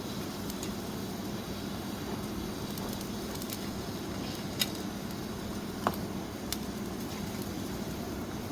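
Small wood cooking fire crackling: a steady low rustle with a few sharp pops near the middle.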